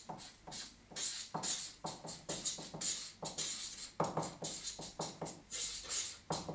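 Felt-tip marker writing on flip-chart paper: a quick, uneven series of short strokes, several a second.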